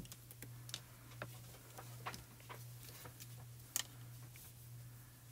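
Soft, scattered clicks and taps of craft supplies being handled and set down on the work mat, with one sharper tap nearly four seconds in, over a low steady hum.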